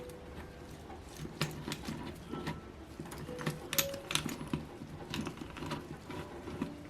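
Irregular small clicks and taps of hand tools working on the parts of a small model engine held in a vise.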